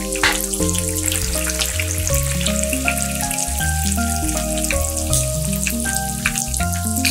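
Battered chicken wings deep-frying in hot oil in a pan, a dense crackling sizzle, under background music with a steady bass line.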